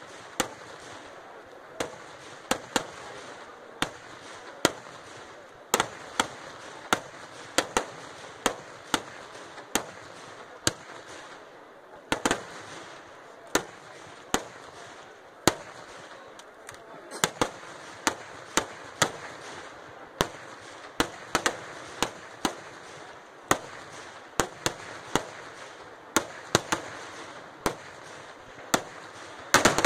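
Kerala temple-festival fireworks (vedikettu): an irregular series of loud, sharp bangs as firecrackers and aerial shells burst, roughly one to three a second, over a steady background noise, coming thicker and faster near the end.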